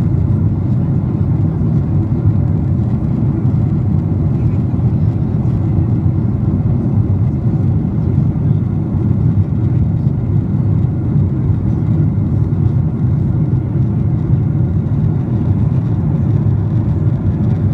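Steady low drone of an airliner cabin in flight: engine and airflow noise, even and unbroken.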